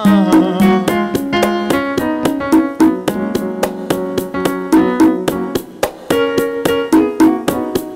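Instrumental gospel music with keyboard over a quick, steady beat: the lead-in to a song before the singing starts.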